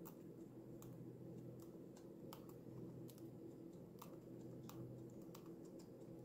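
Lutino cockatiel pecking and husking mixed seed: faint, irregular sharp clicks of its beak, about one or two a second, over a steady low hum.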